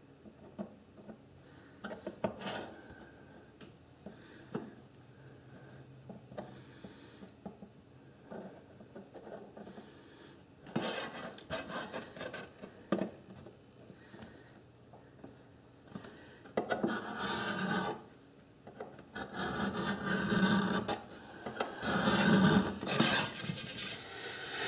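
A metal scriber scratching layout lines into the base of a round metal pan along a steel rule, in short scraping strokes. The strokes are faint at first and become louder and longer from about halfway through.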